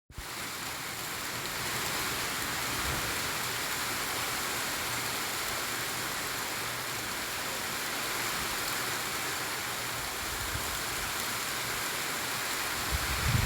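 Steady rain falling, an even hiss with no pauses. Near the end a low, uneven rumble joins in.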